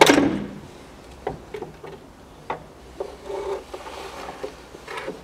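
A sharp metal clank with a short ring, then scattered clicks, knocks and scraping as the crankshaft pulley and the homemade puller on it are worked off the engine's nose by hand.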